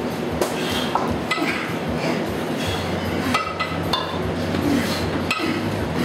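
Pairs of kettlebells clinking and clanking against each other and in the lifters' hands during double kettlebell presses: several sharp metallic knocks at irregular spacing, over a steady low hum.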